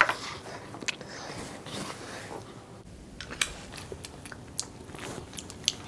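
A person biting and chewing food close to the microphone, with soft mouth sounds and scattered sharp clicks and crunches.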